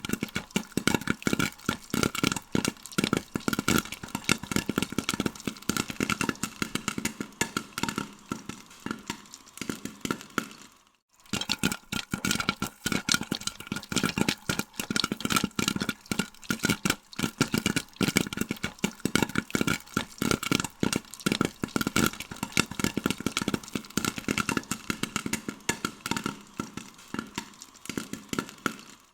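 Popcorn kernels popping in a dense, rapid, irregular stream of sharp pops, broken by a moment of silence about eleven seconds in before the popping resumes.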